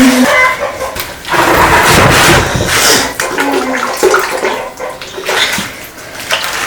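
Water rushing and splashing, loudest in one long surge a little over a second in, then softer broken splashing.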